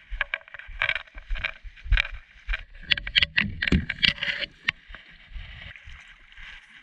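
Stand-up paddleboard being paddled on a lake: the paddle splashes, with several sharp knocks in the first few seconds, then a steadier wash of water and hiss.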